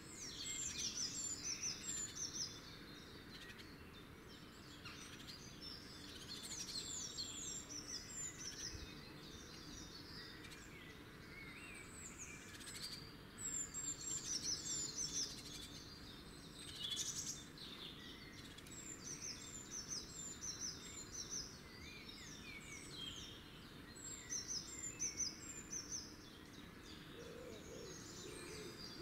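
Wild songbirds singing: short phrases of quick, high, falling notes come every few seconds over a steady outdoor hiss. A low hooting call starts near the end.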